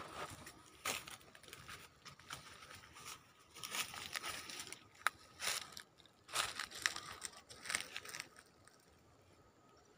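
Footsteps crunching through dry leaf litter and twigs: a run of irregular crunches and rustles that dies down near the end.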